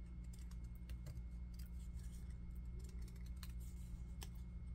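Scissors cutting paper, snipping around a small paper flower cutout: faint, irregular snips of the blades closing, over a low steady hum.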